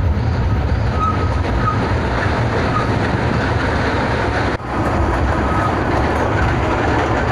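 Kurobe Gorge Railway narrow-gauge train running, heard from an open-sided carriage: a steady rumble of wheels on rail with a few short, faint wheel squeals. The noise dips briefly about four and a half seconds in, and the train runs on into a tunnel.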